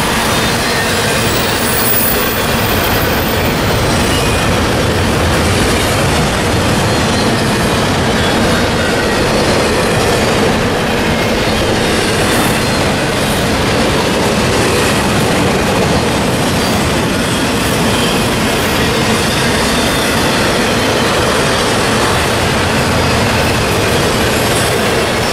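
Double-stack container and trailer cars of a CSX intermodal freight train rolling past: a steady, loud rumble and clatter of steel wheels on rail.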